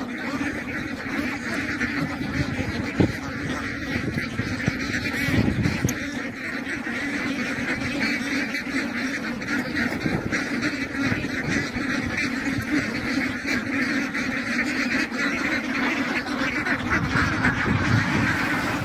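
A large flock of domestic ducks quacking together: many overlapping calls merging into one continuous chorus.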